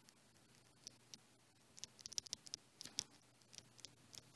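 Faint, quick clicks and taps of a stylus tip writing on a tablet's glass screen, bunched in a short flurry about two to three seconds in.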